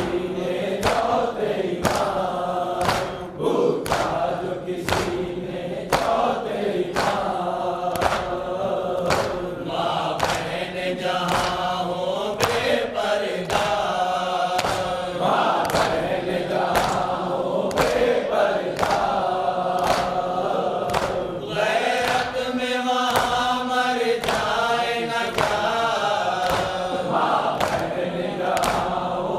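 A male group chants a mourning lament, a noha, led by one voice at a microphone. Rhythmic matam (hands beating on chests) marks the beat about three strikes every two seconds.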